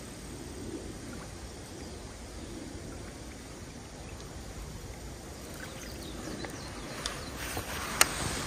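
Steady low outdoor background noise while a lure is reeled back across a pond, then near the end a few sharp clicks from the baitcasting reel and rod being handled, as the rod is swung back for the next cast.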